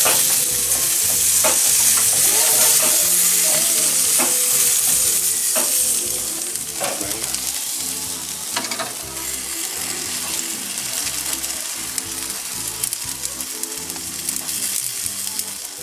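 Butterflied quails sizzling on a barbecue grill, with fat spitting in occasional sharp pops. The sizzle is loudest for the first six seconds or so, then settles quieter.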